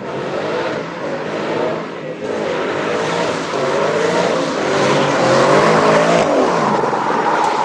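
A car engine revving hard, its pitch swinging up and down repeatedly, under a rushing noise that grows louder toward the end.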